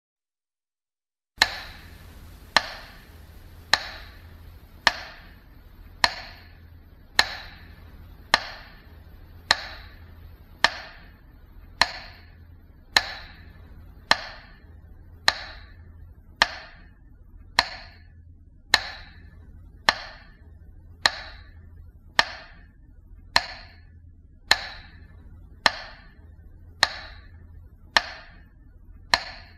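A sharp knock or tick repeating evenly, a little slower than once a second, each strike with a brief ring, over a faint low hum. It starts about a second and a half in, after silence.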